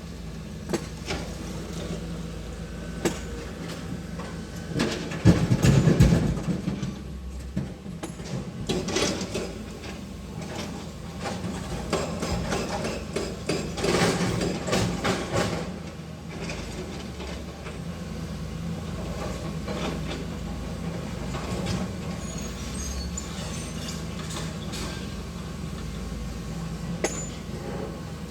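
Heavy digging machinery at an excavation site: an engine running steadily, with irregular clanks and knocks over it. The sound is loudest about five to six seconds in, and busier again in the middle.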